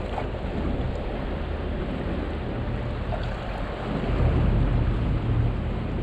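A boat's engine runs with a steady low drone under wind and water noise, and grows louder about four seconds in.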